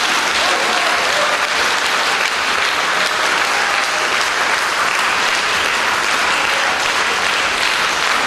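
Concert-hall audience applauding steadily and densely.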